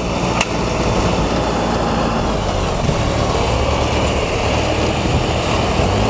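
Engine of a tracked rice-hauling crawler tractor running steadily as it drives down the bank, a low even hum with one sharp click about half a second in.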